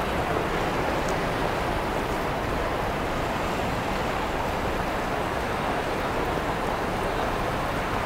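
Steady traffic noise at a busy city intersection: a constant wash of passing cars and street hum, with no chime or bell tone.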